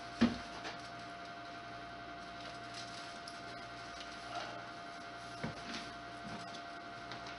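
One sharp knock just after the start, then a steady faint room hum with a few soft knocks and rustles of someone handling things out of sight.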